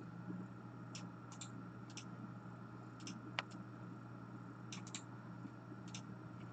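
Faint, irregular clicks of a computer mouse and keyboard, about eight over several seconds, with one sharper click a little past halfway; a steady low hum runs underneath.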